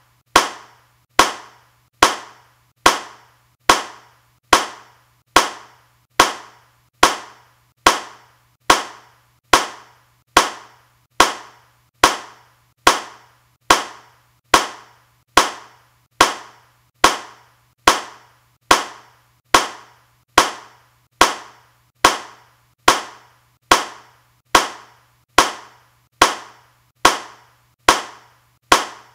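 A single clap repeated at a steady, even pace, a little over one a second, each one sharp with a short fading tail and all the same loudness.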